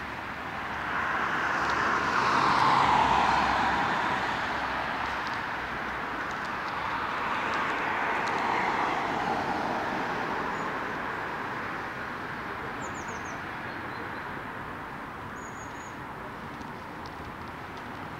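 Traffic passing on a city street: the noise of a vehicle swells and fades about two to three seconds in, and again more softly around eight seconds. A bird chirps faintly a few times in the second half.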